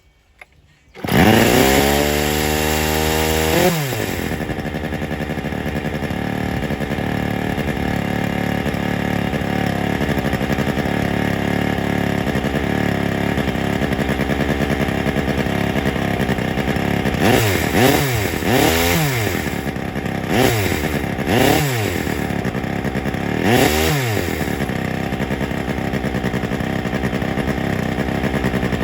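Yanmar RH 350 S chainsaw with a Wankel rotary engine, set to run deliberately rich. About a second in it comes in loud, revving up with a rising pitch for about three seconds, then drops to idle. Around two-thirds of the way through it gets about five quick throttle blips.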